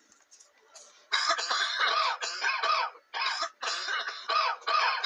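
A person coughing in a rapid, continuous fit that starts about a second in: a long string of harsh coughs with only short breaks between them.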